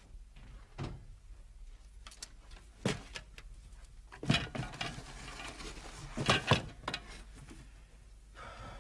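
Handling noise as a framed picture is taken down from a wall and packed into a cardboard box: scattered knocks, thumps and rustles, the loudest about three, four and six and a half seconds in.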